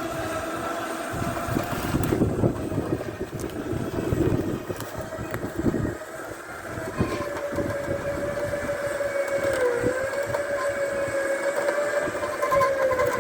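Winch motor whining steadily as it pulls a steel car frame, with metal scraping and clanking in the first half. The whine dips in pitch briefly twice, as if the load changes.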